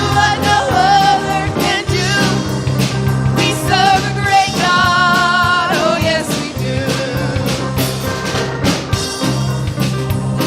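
A worship band playing, with a singer holding wavering notes over a steady drum beat and bass.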